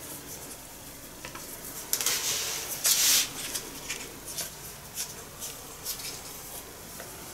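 Plastic packet of date paste crinkling and rustling as it is squeezed and worked by hand, with scattered crackles and a louder rustle about two to three seconds in.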